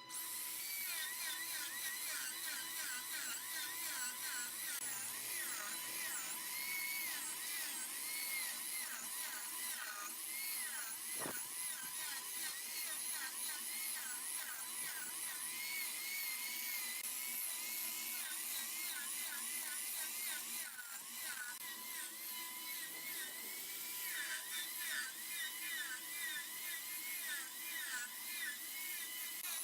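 Wood lathe spinning a bowl while a turning tool cuts into the wood, giving a continuous high-pitched screech that wavers up and down in pitch.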